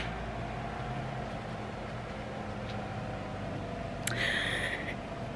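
A car's engine running with a low, steady hum as the car pulls away. A short hiss comes about four seconds in.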